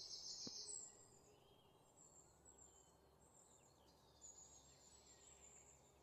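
Faint high bird chirping that fades down about a second in, leaving near silence with a few soft chirps later.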